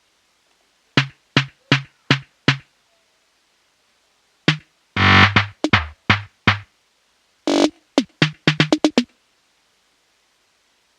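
Programmed snare drum pattern played back on its own: five evenly spaced hits, then a denser group with one longer hit, ending in a quick roll of rapid hits about nine seconds in.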